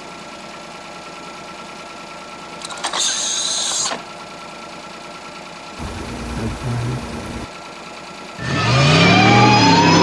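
Car engine sound effects for a DeLorean time machine: a short hiss about three seconds in, a low engine sound around six to seven seconds, then a loud engine rev that rises and falls in pitch over the last second and a half.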